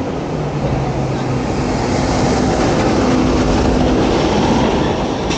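A large vehicle passing close by, a continuous rushing noise with a low steady hum that swells about two seconds in and eases off near the end.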